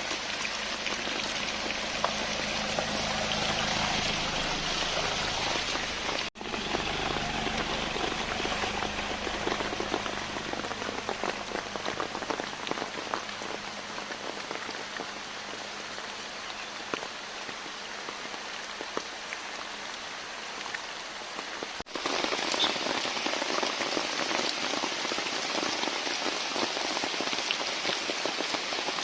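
Rain falling steadily, a dense patter of many drops hitting a surface, with a low hum underneath through roughly the first third. The sound drops out for an instant twice.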